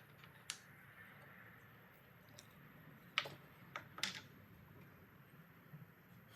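A few light, sharp clicks and taps, the loudest a little past three seconds in, over a faint steady hum.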